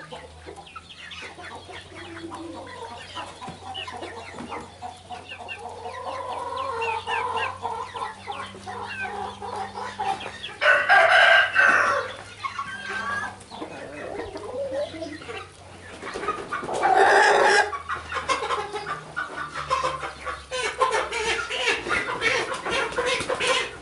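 A flock of young chickens clucking and calling, with two much louder calls of about a second each, about eleven and seventeen seconds in.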